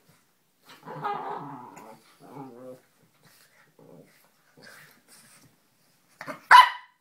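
Lhasa apso and Italian greyhound growling at each other in play, in growly stretches, then a short, loud bark near the end.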